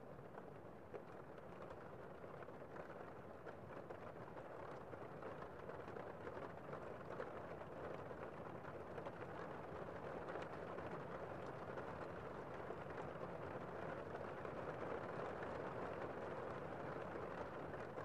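Heavy rain heard from inside a room: a steady, muffled hiss of downpour with faint scattered drop ticks, swelling slowly a little louder.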